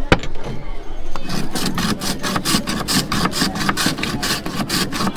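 Ice being scraped or broken up by hand for the drinks: quick rhythmic scraping strokes, about five a second, after a single sharp click near the start.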